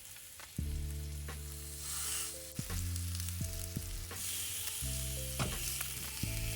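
Beef short ribs sizzling as they sear in a hot cast iron pan, with a hiss that swells and fades and a few sharp crackles. Background music with a steady bass line plays underneath.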